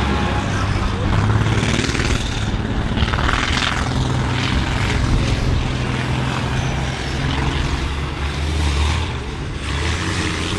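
Diesel engines of stripped-down race combine harvesters running hard over a dirt track: a loud, steady low drone whose pitch shifts as they accelerate and ease off.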